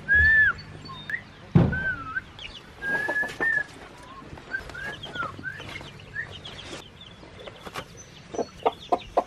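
Chicks peeping in short rising-and-falling calls, disturbed as their mobile pen is moved. There are a couple of thumps in the first two seconds, and a hen clucks several times near the end.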